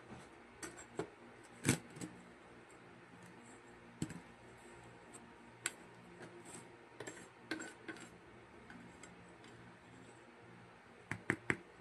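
Scattered sharp clicks and light knocks of a plastic spoon, a metal table knife and small plastic tubs being handled and set down on a placemat. The loudest comes about two seconds in, and three quick clicks come near the end.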